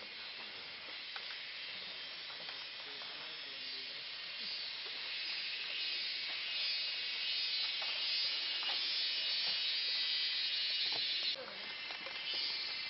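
Forest insect chorus: a steady high-pitched buzz that grows louder a few seconds in and dips suddenly near the end, with a few faint clicks beneath it.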